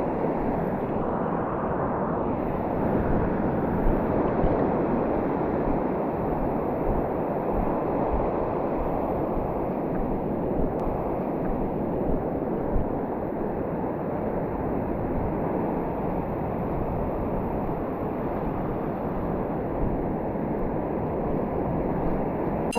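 Steady rush of ocean surf with wind noise on a GoPro's microphone.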